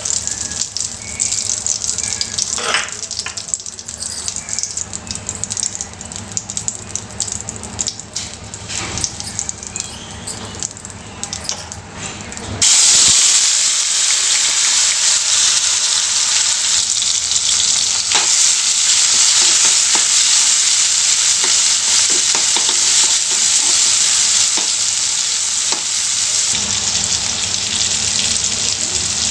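Whole spice seeds crackling and popping in hot oil in an aluminium kadhai. A little before halfway, chopped tomatoes go in and it jumps to a loud, steady sizzle of frying.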